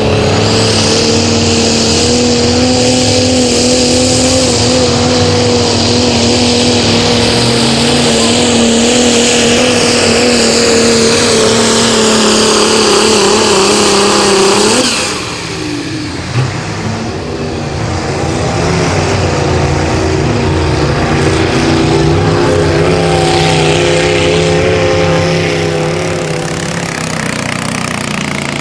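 Diesel pickup truck engine at full throttle under heavy load as it drags a pulling sled, its note held high and steady for about fifteen seconds, with thick black exhaust smoke from the stack. Then the throttle is lifted and the engine falls away suddenly, a short sharp knock follows, and an engine runs on steadily at a lower level.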